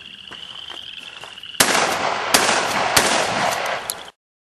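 A gun fires about one and a half seconds in, a sharp crack followed by a loud, noisy stretch with three or four more sharp cracks, then the sound cuts off abruptly. Before the shot, a steady high chirring trill of frogs or insects.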